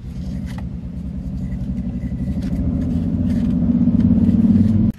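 A motor vehicle engine running with a low, fast-pulsing rumble that grows steadily louder and cuts off abruptly near the end, with faint clicks of the plastic-framed filter being handled.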